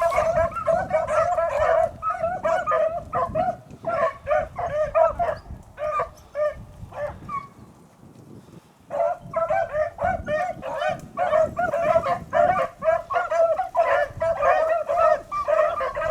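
Pack of beagles baying in quick, overlapping calls, the sound of hounds running a rabbit's trail. The voices thin out and nearly stop for a moment around the middle, then the full pack picks up again.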